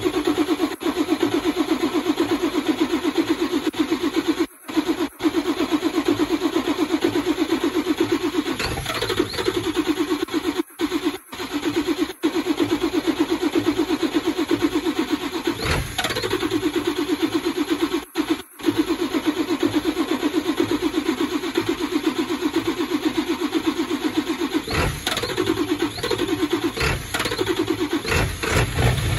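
7.3 Powerstroke turbo-diesel V8 cranking over on the starter in a fast, even rhythm, with a few brief breaks and occasional louder pops. It is a hard cold start in the low 20s °F without the block heater plugged in, the engine struggling to catch while blowing white smoke.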